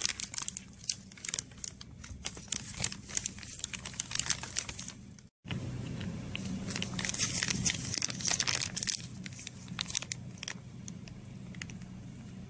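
Thin clear TPU plastic film crinkling and crackling as a sealed film bag is squeezed and flexed by hand, testing whether its ultrasonic-welded seam is waterproof. A low steady hum sits underneath, and the sound cuts out for a moment about five seconds in.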